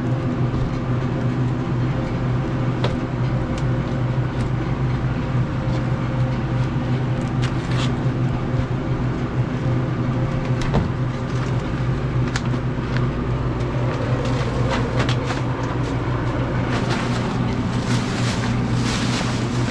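Steady low hum of running machinery, with scattered knocks and crackles as a rotted ceiling panel is pulled down, and a burst of plastic garbage-bag rustling near the end.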